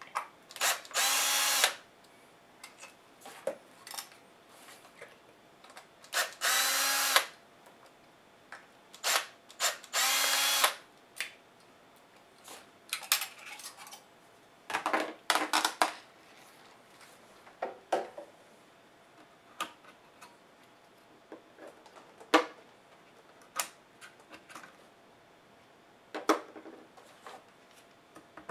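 Small cordless electric screwdriver running in several short bursts of about a second each, backing out laptop bottom-case screws. Sharp clicks and taps of screws and tools come between the runs.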